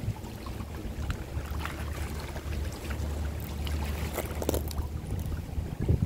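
Water lapping at the waterside with small splashes, over a low steady rumble from about a second and a half in.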